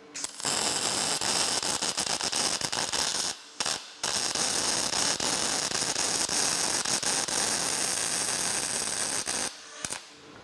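MIG welder arc crackling steadily as it lays a weld bead joining steel bars to a steel plate. The crackle stops briefly about three and a half seconds in, starts again, and stops near the end.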